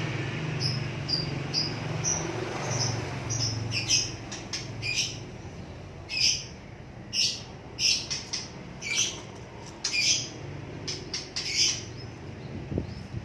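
A small bird chirping again and again in short, high calls, which come more often from about four seconds in, over a low hum at the start.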